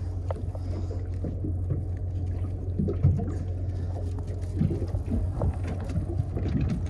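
Boat engine running steadily with a low hum, and a brief knock about three seconds in as the fish is handled on the deck.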